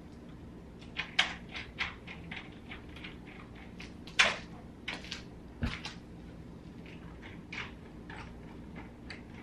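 Horizontal window blinds being pulled up and adjusted, the slats and cord mechanism clattering: a quick run of clicks and clacks about a second in, one loud clack around four seconds in, then a few scattered clicks.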